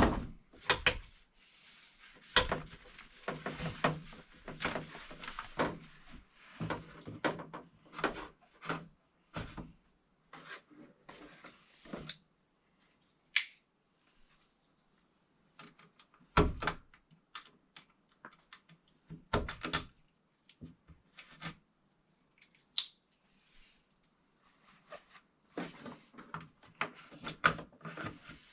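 Scattered clicks, knocks and rubbing of hand work on electrical cable and fittings: tools, wire and fasteners being handled while wiring is run and secured. A few of the knocks carry a dull thud, the loudest at the very start and about sixteen seconds in.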